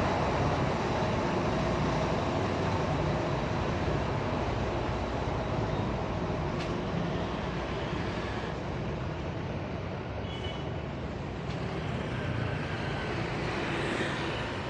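Street traffic: a steady rumble of bus engines close by, with motorbikes and cars passing on the road. The rumble is loudest at first and eases a little as the buses are left behind.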